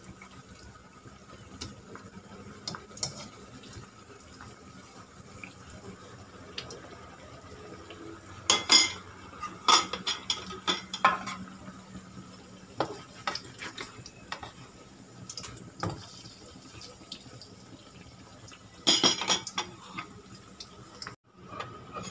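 Metal tongs clacking against a nonstick frying pan as patties shallow-fry in bubbling oil with a steady low sizzle. The clacks come in two clusters, a run of sharp knocks a little before the middle and another short burst near the end.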